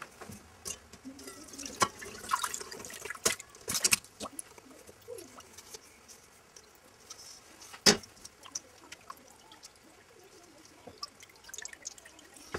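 Elderflower and lemon liquid poured and strained through a wire-mesh strainer into a saucepan: irregular splashing and trickling with small clinks, and one sharp knock about eight seconds in. Later the liquid drips through the lifted strainer.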